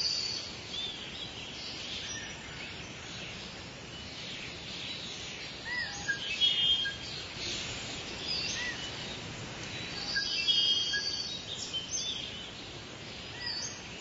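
Several wild birds calling over a steady hiss of ambient noise: high thin whistles, short trills and a few small arched chirps. The calls come in two busier bursts, about six seconds in and again about ten seconds in.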